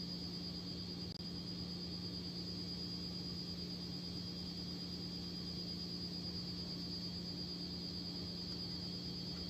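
Steady electrical or machine hum with a constant high-pitched whine above it.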